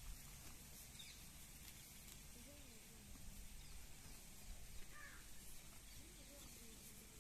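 Near silence: faint outdoor farmyard background with a few faint, short chirps scattered through it.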